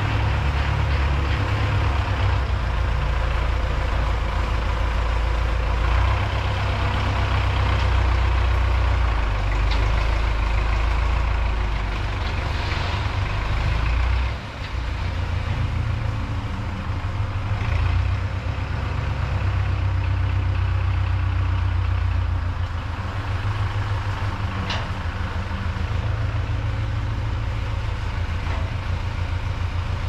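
MTZ-82 tractor's four-cylinder diesel engine running steadily, a deep rumble whose note shifts now and then.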